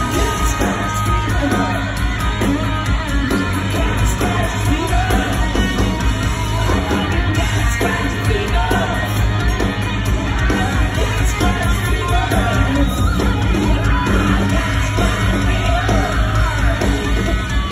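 Live hard rock band playing loud: distorted hollow-body electric guitar over bass guitar and drums, with yelling, heard from the audience in a large hall.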